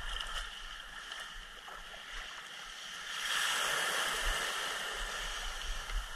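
Surf washing up the shore and around the hull of a beached wooden boat, swelling louder for a couple of seconds about three seconds in.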